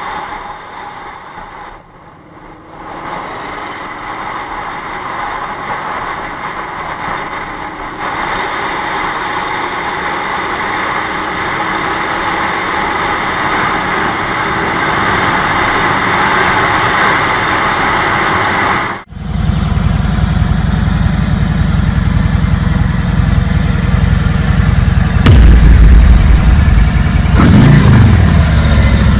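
Cruiser motorcycle's V-twin running at highway speed under heavy wind and road noise, heard from the rider's seat. After a sudden cut, a Harley-Davidson CVO touring bike's V-twin idles with a deep steady rumble, then is revved louder with the throttle near the end.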